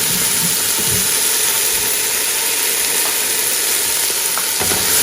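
Chopped onion, garlic, peppers and okra sizzling steadily in hot oil in a pot as they sauté.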